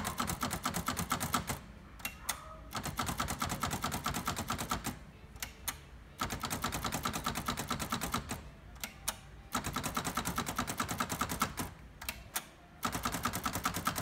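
Sears Achiever (Brother JP7) typewriter carriage spacing along in quick, even runs of clicks, five runs in all. Each run moves the carriage about ten spaces, with a single click between runs as each tab stop is set every ten spaces.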